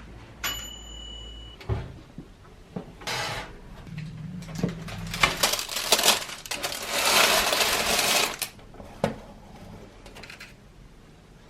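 Household handling noises: a short steady electronic beep about half a second in, then scattered clicks and clatter. From about five seconds in comes a few seconds of loud rustling and scraping.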